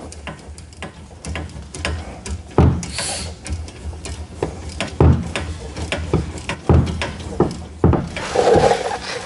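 Hand tools and metal brake parts clicking, scraping and knocking at a car's rear brake assembly, with a few heavier knocks every second or two and a brief hiss about three seconds in.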